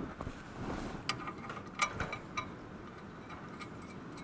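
A handful of light metallic clinks and taps, a little ringing, as the new clutch pressure plate is fitted and bolted to the flywheel.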